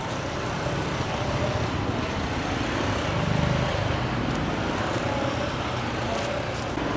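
Street traffic with motorbike engines running past close by, loudest about halfway through.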